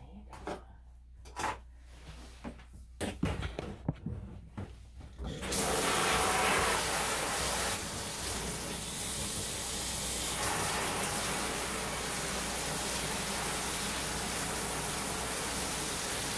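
Water sprayer on a dog-grooming tub turned on about five seconds in, giving a steady hiss of spraying water. Before it come a few scattered knocks and clicks.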